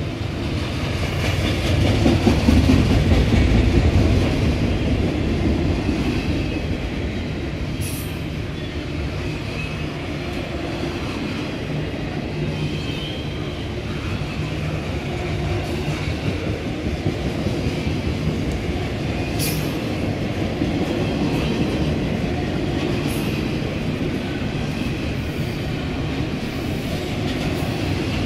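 Double-stack intermodal freight train rolling past: steady wheel-on-rail noise from the passing well cars, loudest about two to four seconds in.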